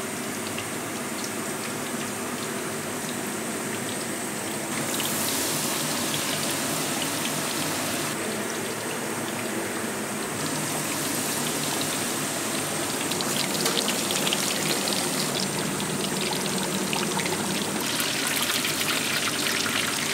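Hot oil in a wok sizzling and crackling as battered pork belly strips deep-fry, a steady bubbling hiss whose crackle grows denser in the last few seconds.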